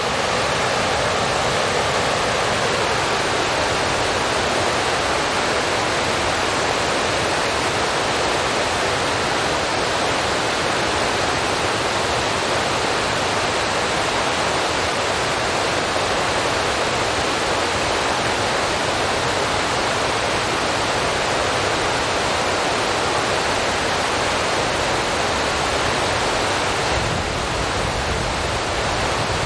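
Steady, even rushing noise, like hiss or running water, with no separate events in it. It shifts slightly in tone near the end.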